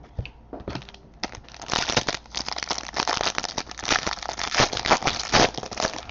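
Crinkling and crackling of a trading-card pack's foil wrapper being handled and crumpled, a dense run of sharp crackles starting about a second in.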